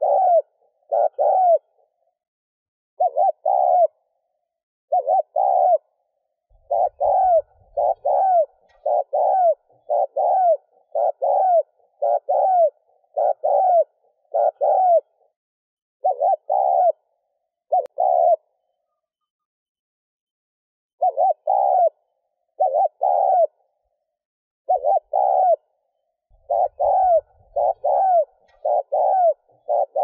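Spotted dove cooing: short coo notes repeated in quick runs, about one a second, with a pause of a couple of seconds a little past the middle.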